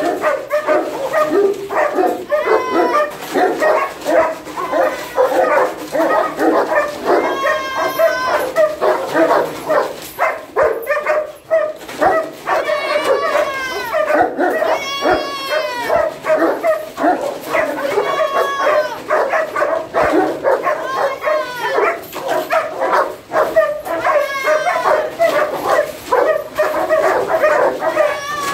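Several kennelled dogs barking excitedly without a break, with high whines and yelps rising and falling in pitch over the barking every few seconds.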